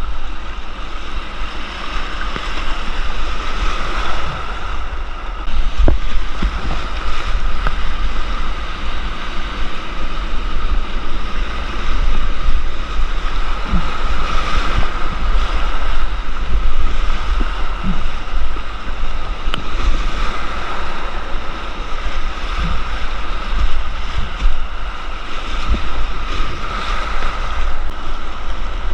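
Whitewater of a creek rushing and splashing steadily around a kayak, with wind buffeting the microphone and a few short knocks scattered through.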